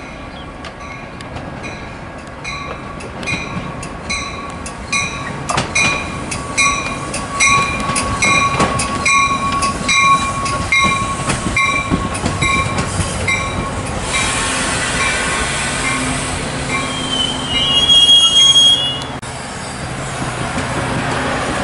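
Metra bilevel commuter train coming into the station with its cab car leading, a bell ringing about one and a half times a second for roughly the first two-thirds. Wheels and brakes squeal as the train slows, loudest with a high squeal shortly before the noise drops off.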